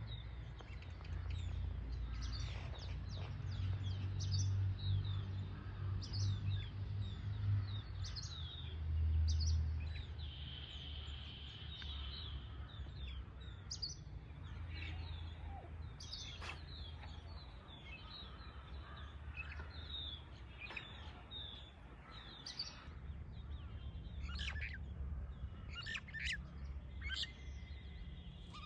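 Small songbirds calling: many short, high chirps and quick whistled notes, with one steady trill held for about two seconds near the middle. Under them runs a low rumble.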